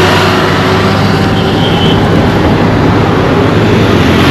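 Road traffic: a motor vehicle's engine running close by, a steady loud hum over the noise of the road.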